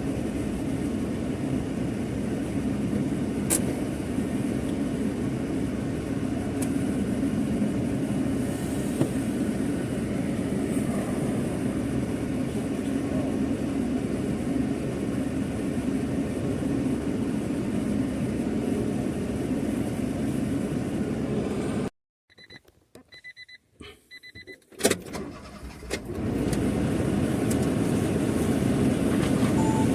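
Steady road and engine noise of a car being driven. About 22 seconds in it cuts off abruptly to near silence with a few faint beeps and a click, then the driving noise comes back about four seconds later.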